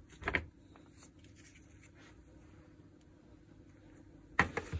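Quiet small-room tone with faint handling sounds of a hammer drill being taken apart. A brief, sharp, loud handling noise comes near the end.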